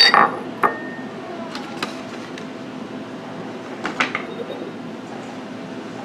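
Glazed ceramic pieces of an Emile Henry butter pot being handled: the bowl and its lid knock and clink against each other and the stone countertop. There is a sharp knock at the start, a few lighter clicks over the next two seconds, and a short cluster of clinks about four seconds in.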